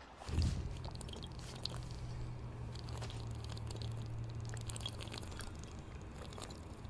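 A man gulping water from a glass bottle: repeated swallows and small wet mouth clicks, over a low steady hum that fades a little over halfway through.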